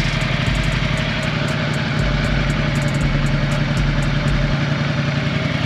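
Ducati XDiavel's 1262 cc L-twin engine idling steadily, heard from the rider's seat.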